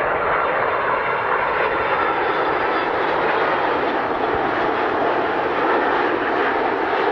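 Airliner engines running steadily: a loud, even rushing noise with a faint high whine through it.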